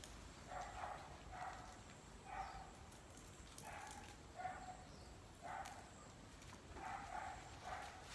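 Faint animal calls, about eight short ones at roughly one-second intervals, some coming in pairs.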